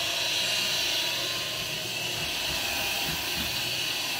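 A steady machine hiss, like carpet-cleaning equipment running, with a plastic gum-getter scraper rubbing against carpet pile in the second half.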